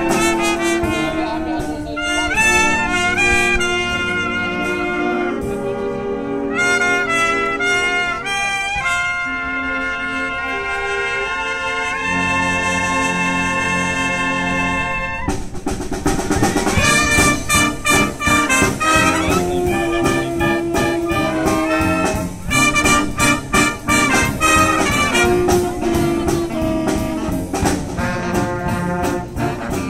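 Youth wind band playing a jazzy brass arrangement, trumpets and trombones to the fore in held chords. About halfway in the music turns louder and busier, driven by a beat of sharp hits.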